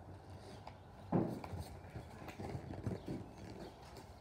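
Irregular knocks and scrapes of a cardboard package being handled and worked open by hand, the loudest knock about a second in.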